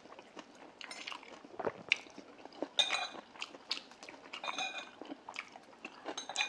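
Close-up eating sounds: chewing and small wet mouth noises, with chopsticks clinking against dishes a few times, most clearly about three seconds in and again near five seconds.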